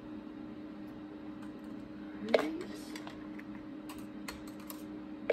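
Scattered light clicks and taps as an oil dropper and bottle are handled against a seized vintage Kenmore sewing machine during oiling. The loudest tap comes a little over two seconds in, with a faint steady hum underneath.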